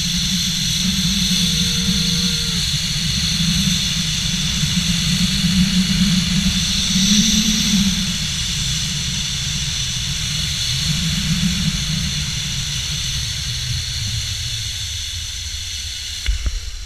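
Wind buffeting the camera microphone and the zip line trolley's pulleys whirring along the steel cable during a fast ride, fading gradually as the ride slows. A few sharp knocks come near the end as the trolley reaches the landing platform, and the rush then dies away.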